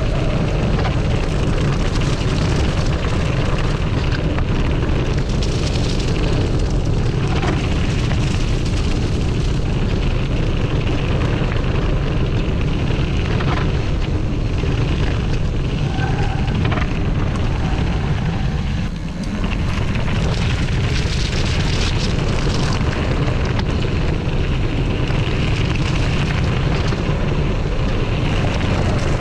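Wind buffeting the action-camera microphone and tyre rumble on gravel as a Kona Hei Hei mountain bike rolls along a dirt farm track: a loud, steady, heavy low rumble that eases briefly about 19 seconds in.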